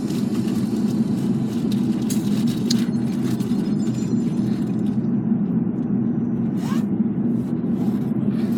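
Steady road and engine noise inside a moving car, an even low rumble with a few faint clicks.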